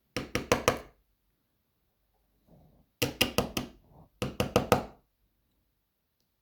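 A DOM lock core being knocked to drive out its small check pins: three quick runs of about four sharp knocks each, one near the start and two close together past the middle.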